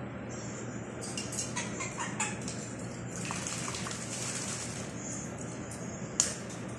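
A small pet parrot bathing in its cage's water dish: short splashes and flicks of water, then a denser spell of splashing a few seconds in, and a single sharp knock near the end.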